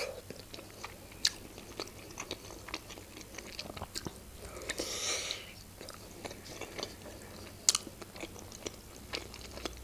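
Close-miked eating of a Georgian khinkali dumpling: a bite about halfway through, with quiet chewing and a few sharp mouth clicks before and after.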